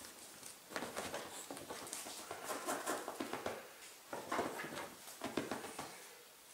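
Scratchy rustling and soft clicks as a Ragdoll cat rolls over, scrambles and turns around on a fabric recliner's upholstery. The sound comes in two irregular stretches and dies down near the end as the cat settles.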